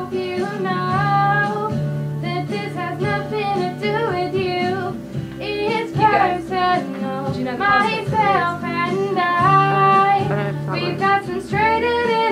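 A young female voice singing a pop ballad over an instrumental backing track.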